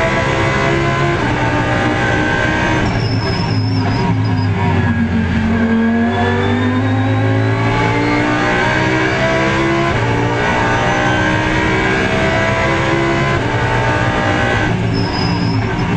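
Audi R8 LMS GT3 race car's 5.2-litre V10 at high revs under throttle, heard from inside the cockpit, its pitch climbing and then stepping down several times as the sequential gearbox shifts. A short high-pitched squeal comes about three seconds in and again near the end.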